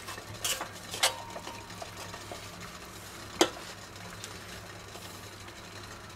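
A metal spoon and pan knock and click against a spätzle slicer and its plastic hopper on a pot, a few sharp strikes with the loudest about three and a half seconds in. Under them is the steady hiss of water boiling in the pot.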